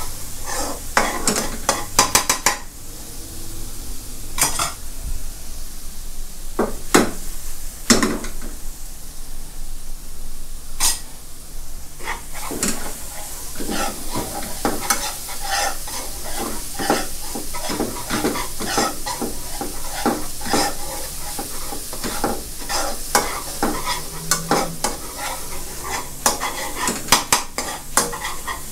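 Minced garlic and shallots sizzling in oil in a stone-coated non-stick wok, stirred with a metal spoon that scrapes and clinks against the pan in quick repeated strokes, with a couple of short pauses in the stirring.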